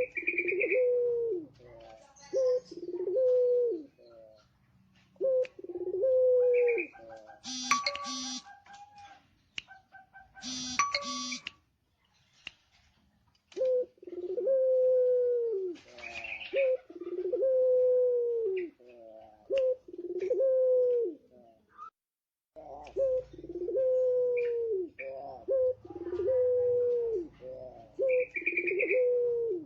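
Male puter pelung dove cooing: long drawn notes, each ending in a falling slur, repeated in runs with short pauses between them. About 8 and 11 seconds in, two short buzzy tones with many overtones break in.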